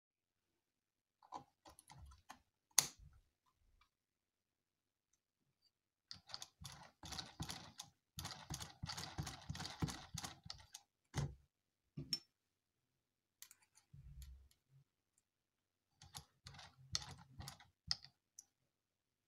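Light plastic clicks and clatter as small 3D-printed plastic parts are handled and fitted onto the model engine's flywheel shaft, with a busy stretch of rattling in the middle.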